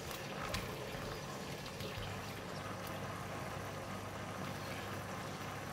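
Pork in a thin sauce bubbling steadily at a simmer in a nonstick wok, with a light utensil tap about half a second in.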